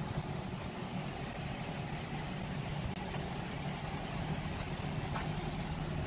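A car engine idling, a steady low hum over faint street noise.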